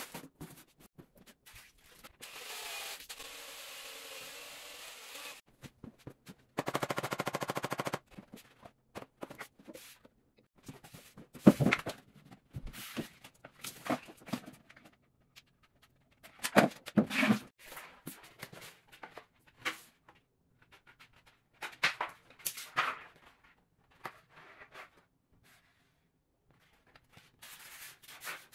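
A plastic bag rustling as it is handled at a mud bucket, followed by a series of sharp, irregular knocks and clacks.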